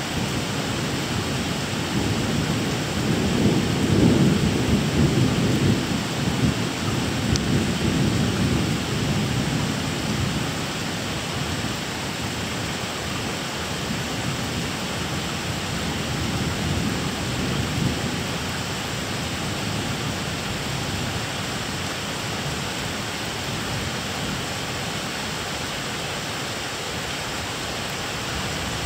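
Steady rain with rolling thunder: a low rumble builds a couple of seconds in, is loudest around four seconds and dies away by about ten seconds, and a fainter rumble rolls through a little past the middle.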